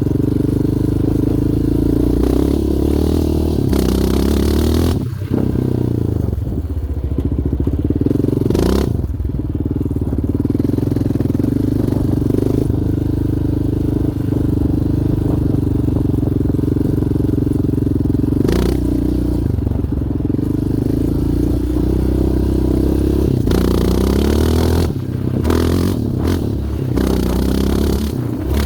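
Yamaha Raptor 700R quad's single-cylinder four-stroke engine running while being ridden, its pitch dipping and climbing again a few times as the revs change. Several short rushes of noise cut across it.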